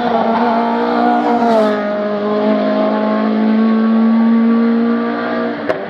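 Renault Clio RS III race car's 2.0-litre four-cylinder engine running hard under load as the car drives past, its pitch dropping once about a second and a half in, then holding steady before fading near the end. A sharp click near the end.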